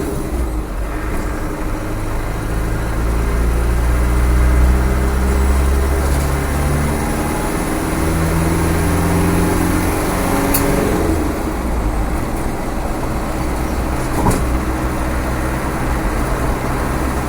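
Land Rover Defender's rebuilt 300Tdi 2.5-litre four-cylinder turbodiesel heard from inside the cab on the road, its engine note shifting up and down in pitch several times over steady road noise, with two short knocks in the second half.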